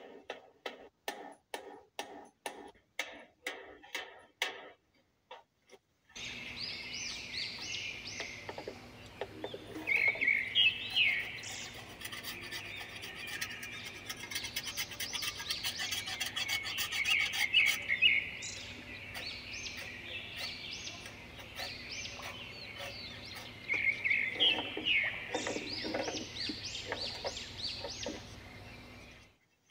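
Sharp wooden knocks, about two a second, as wooden pegs are tapped into a plank bench with a hammer; they stop after about five seconds. After a short pause, songbirds chirp and trill in repeated quick bursts over a low steady hum, with faint scraping of a knife shaving a birch pole.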